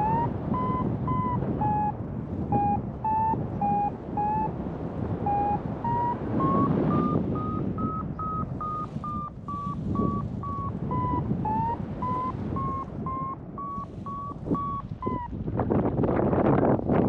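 Paragliding variometer beeping in a steady string of short tones, about two a second. The pitch rises through the middle and eases back a little before the beeps stop near the end: the climb tone of a glider rising in lift. Wind rushes over the microphone underneath and grows stronger once the beeps stop.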